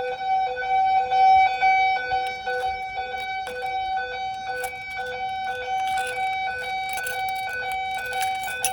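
Simplex fire alarm notification appliances sounding in an alarm test: a loud, steady electronic alarm tone on two pitches, broken by short regular gaps, with a few faint clicks over it.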